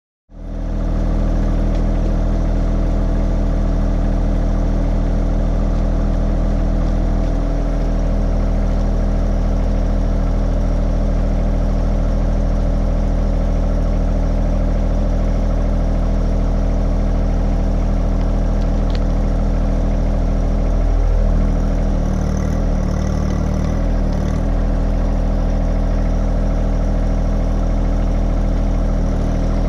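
John Deere 1025R compact tractor's three-cylinder diesel engine idling steadily, its note wavering briefly about two-thirds of the way through.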